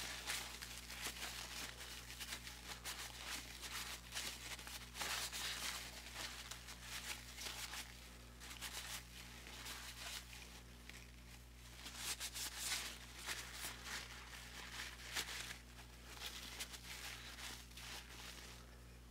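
Faint rustling and rubbing of a crumpled paper towel wiping a clamped wooden handle, taking off excess CA glue, over a low steady hum.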